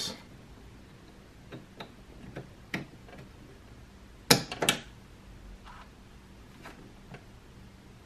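Scattered small clicks and taps of a plastic wiring connector being handled and plugged into a Tesla Model S door-handle harness, with a sharp double click about four seconds in, over a faint steady hum.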